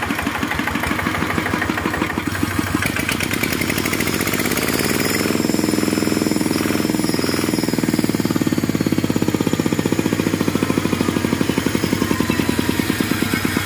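Small single-cylinder diesel engine of a farm land-leveling machine running with an even, rapid firing beat. It is throttled up between about four and eight seconds in, then held at the higher speed to spin the belt-driven alternator that powers its lamps.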